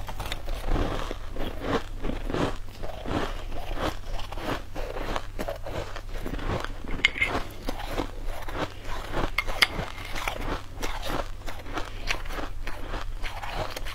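Mouth crunching and chewing green shaved ice: a dense run of irregular icy crunches, with a couple of sharper clicks partway through.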